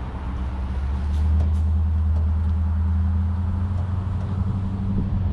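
Pickup truck driving on the road while towing a loaded firewood trailer: a steady low engine and road drone that grows louder about a second in.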